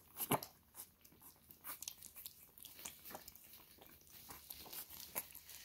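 Puppies eating soft wet food from a shared pan, with irregular wet smacking, chewing and small clicks. The loudest click comes about a third of a second in.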